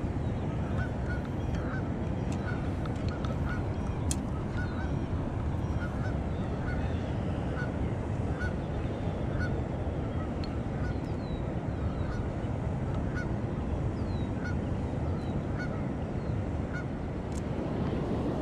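Steady rush of river water and wind with a bird calling over it in a long run of short notes, about two a second, and a few faint higher chirps from small birds.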